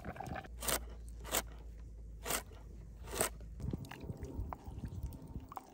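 Four short, loud crunches, spaced under a second apart, over the first three seconds or so, then quieter scattered scraping and crackling.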